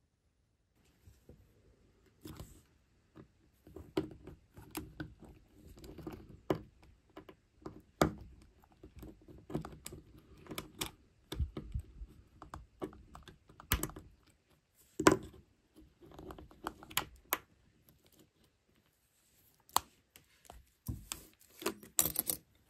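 Irregular small metal clicks, taps and scrapes of watch-repair tools and watch parts being handled on a bench, the loudest tap about two-thirds of the way in and a quick flurry of clicks near the end.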